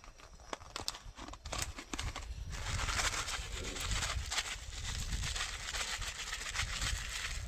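Freeze-dried diced carrots handled and poured: a few scattered dry clicks, then a dense crackly rustle from about two and a half seconds in as the dry pieces are sprinkled out.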